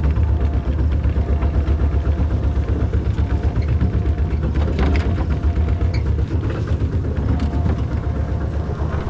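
Rice combine harvester's engine running steadily with a low rumble.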